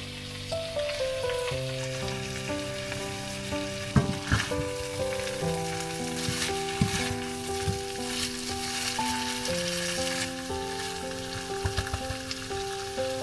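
Food sizzling in a frying pan as it is stirred, with a few sharp knocks of the utensil against the pan. Soft background music with slow held notes plays along.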